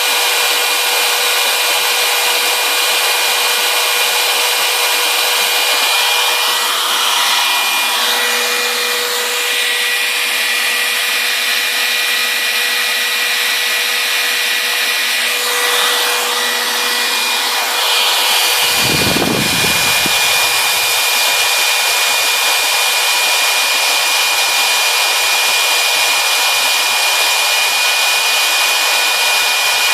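RotoZip spiral saw running at speed as the spindle of a homebuilt CNC machine, a steady high whine with cutting noise as the bit routes the workpiece. There is a brief low rumble about two-thirds of the way in.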